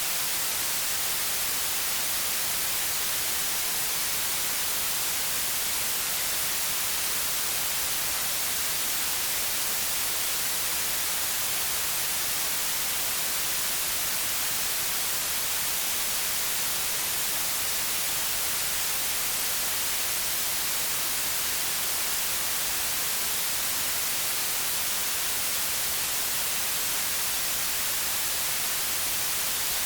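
Continuous white noise: a steady, even hiss with no change in level, strongest in the high range.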